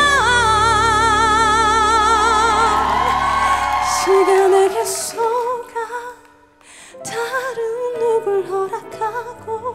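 A woman singing a ballad live over instrumental backing. She holds a long high note with a wide vibrato for about three seconds, then sings shorter phrases. The music falls almost silent for a moment about six seconds in before her singing resumes.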